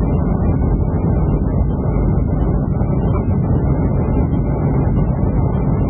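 Steady cabin noise of a Boeing 757 on final approach to landing: the hum of its twin jet engines and the rush of air along the fuselage, heavy in the low end and unchanging.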